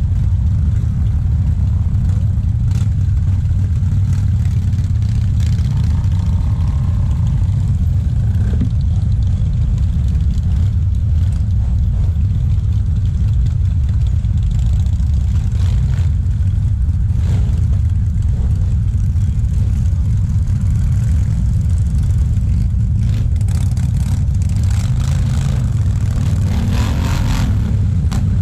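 Many cruiser motorcycles running together in a massed low, steady rumble, with engines revving up near the end.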